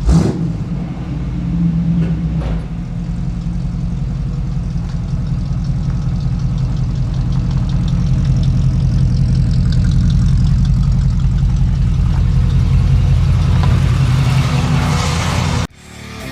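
A vehicle engine running steadily with a fast, even firing pulse, getting a little louder toward the end, then cutting off abruptly near the end.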